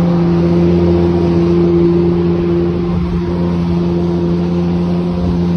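Jet ski engine running steadily at cruising speed, a constant drone over a rushing wash of water and wind.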